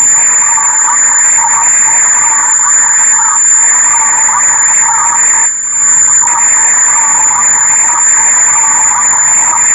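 Loud, heavily distorted mashup audio of a YouTube Poop, re-recorded through several screen recorders, with a steady high-pitched whine throughout and a dense, harsh noise under it. It drops out briefly about five and a half seconds in.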